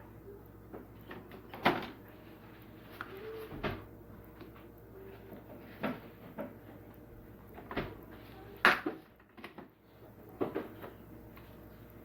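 A series of separate knocks and clicks, about six of them spaced a second or two apart, like hard parts being opened, closed and set down by hand. The loudest comes about two-thirds of the way through.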